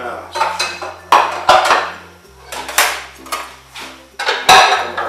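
Kitchen clatter of crockery and a knife: a few sharp, irregular knocks as a plate is handled and a chef's knife strikes a plastic cutting board, over a low steady hum.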